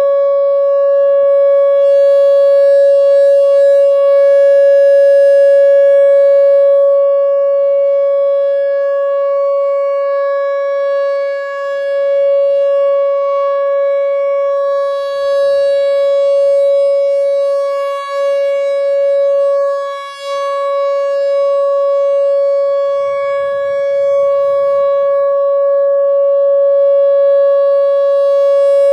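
Whelen Vortex R4 electronic outdoor warning siren sounding a steady-tone alert signal in a test: one unchanging pitch with strong overtones, its loudness swelling and dipping slightly as it sounds.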